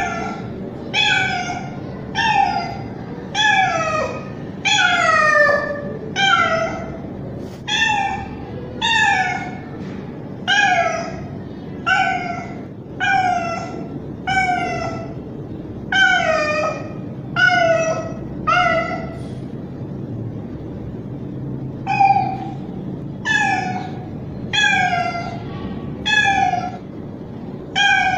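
A young male street cat meowing loudly and over and over, about one call a second, each call falling in pitch, with a pause of a few seconds about two-thirds of the way through. The uploader took the calling for hunger.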